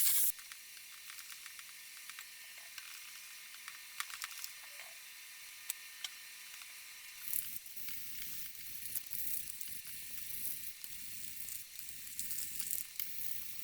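Faint steady hiss with scattered light clicks and taps. From about seven seconds in, soft low knocks and rustling join in, like small metal parts and tools being handled.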